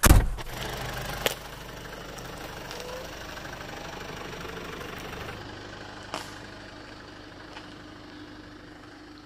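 An SUV's door slams shut, with a smaller knock about a second later, then the engine runs steadily as the vehicle pulls away along a dirt track, its sound fading slowly as it moves off.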